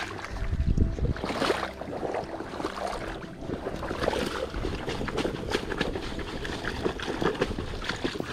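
Shallow muddy water splashing and sloshing as a hand net is worked through it, in a run of irregular splashes.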